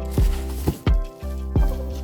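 Background music with a steady beat: a kick drum about every 0.7 seconds over held bass notes.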